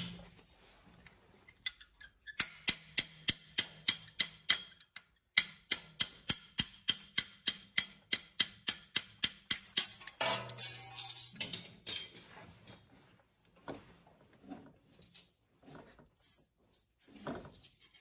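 Hammer tapping a punch to drive the pad-retaining pins out of a Toyota Tacoma front brake caliper: a long run of quick light metallic taps, about three or four a second, with a short break partway. About ten seconds in there is a brief scrape, then a few scattered clicks of metal parts being handled.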